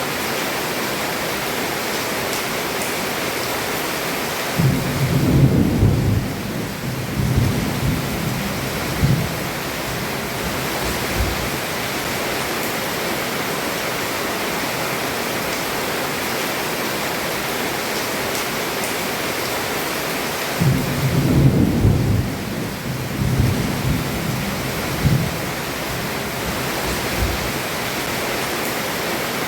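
Heavy rain falling steadily on a roof, with two rolls of thunder, one about five seconds in and one about twenty seconds in, each rumbling for about six seconds in several swells.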